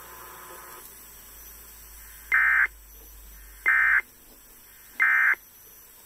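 NOAA Weather Radio SAME digital data tones: three identical short buzzy bursts about a second and a half apart, the end-of-message code that closes the broadcast's required weekly test, over faint radio hiss.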